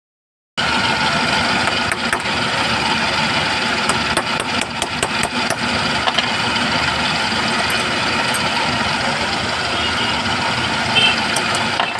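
A workshop machine's motor running steadily, with a few light metal clicks and taps from work on the scissors about two seconds in and again around the middle.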